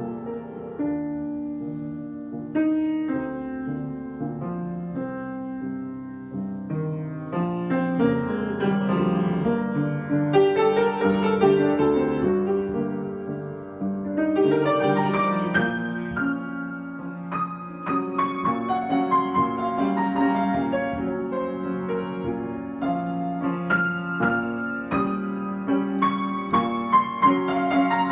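Solo piano improvisation: chords and melody notes struck and left to ring, growing fuller and louder from about eight seconds in, with many quick notes near the end.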